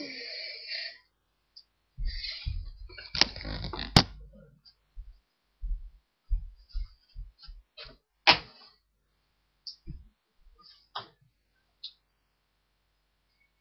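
Irregular thumps, knocks and rustling of someone moving about a small room and handling things, with sharp knocks about three, four and eight seconds in.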